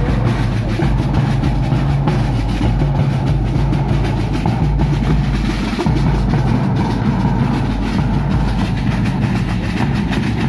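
Marching drum band of metal-shelled snare drums and a bass drum playing a fast, dense beat without a break.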